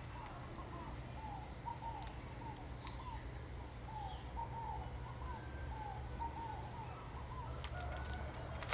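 Birds calling: a steady stream of short, arched chirps, two or three a second, over a low steady rumble of outdoor background.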